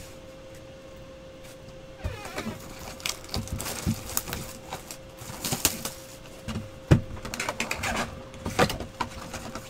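Cardboard Select trading-card boxes being handled and torn open by hand: rustling, crinkling and sharp taps starting about two seconds in, over a faint steady hum.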